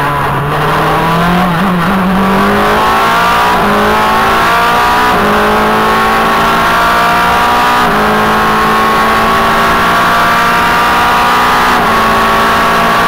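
Formula Renault 2.0 race car's four-cylinder engine heard from the cockpit, accelerating hard out of a corner and up through the gears: the pitch climbs steadily, with a short drop at each of four upshifts that come further apart as speed builds.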